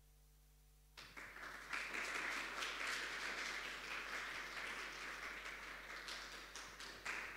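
A small seated audience applauding. The clapping starts suddenly about a second in and stops just before the end.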